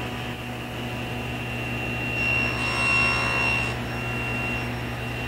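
Table saw running at full speed with a steady high whine and hum. Its blade cuts through a thin strip of molding from about two seconds in to nearly four, where the sound gets louder and rougher.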